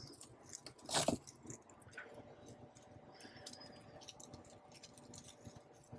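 Clear plastic cling wrap crinkling and rustling as it is pulled and folded around a block of raw salmon, with scattered faint clicks and one louder rustle about a second in.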